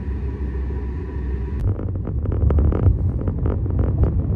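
Steady low road and engine rumble inside a moving car. About a second and a half in, a sharp click, after which the rumble is joined by irregular knocks and rustling.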